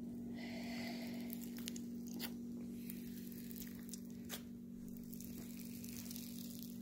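Foam slime full of tiny foam beads being squished, pressed flat and pulled apart by hand, giving faint crackling and tearing sounds. A steady low hum runs underneath.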